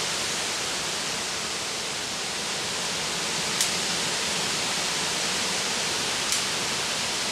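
A steady, even hiss, heaviest in the upper pitches, with two faint ticks partway through.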